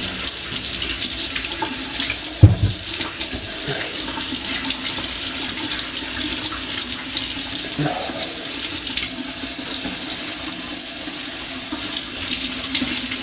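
Kitchen tap running steadily into a stainless-steel sink while vegetables are rinsed under it, with one sharp knock about two and a half seconds in.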